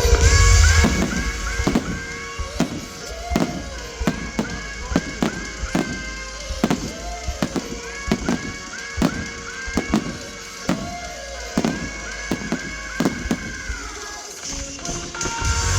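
Display fireworks going off in a rapid string of sharp bangs, about two a second, many with short whistles that fall in pitch, over music.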